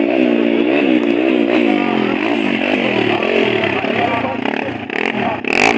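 Motocross dirt bike engine revving up and down in quick, uneven throttle surges, with spectators' voices underneath.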